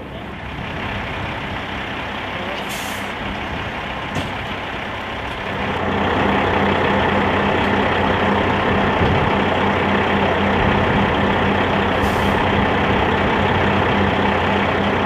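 Large military truck's engine running steadily close by, louder from about six seconds in, with a steady low hum under it. Two brief hisses cut through, one about three seconds in and one near the end.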